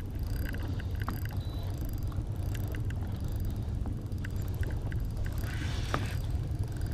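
Boat motor running steadily, a low even hum, with a few light ticks over it.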